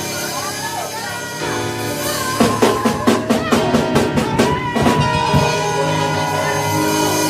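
Church band music: sustained keyboard chords with a fast run of drum hits in the middle, about five a second for roughly two and a half seconds, punctuating the preaching.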